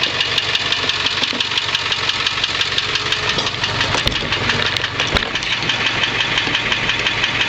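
A 7.3-litre Powerstroke V8 turbo diesel idling with a steady, rapid diesel clatter. Two sharp knocks come about four and five seconds in.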